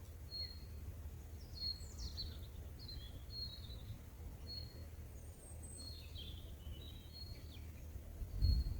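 Small birds calling: one repeats a short, high note about once a second, while others twitter with quick falling chirps. A faint, steady low rumble of outdoor background noise runs underneath.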